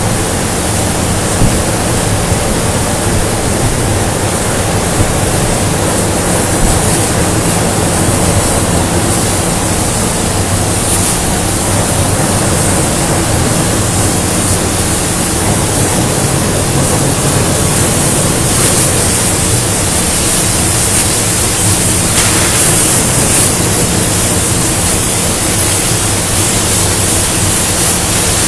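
Loud, steady machinery noise in a steel fabrication shop: an even hiss over a constant low hum, with no breaks.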